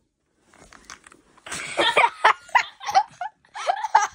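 Young children laughing and shrieking in short bursts, mixed with knocks and rustles of the phone being jostled, starting about a second and a half in.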